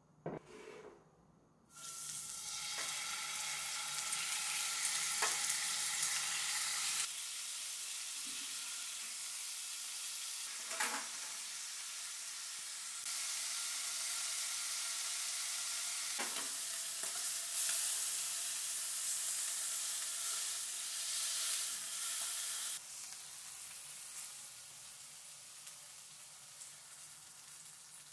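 Beef searing in hot oil in an All-Clad nonstick frying pan on high heat: a steady sizzle that starts suddenly about two seconds in, with a few short knocks, and turns quieter near the end.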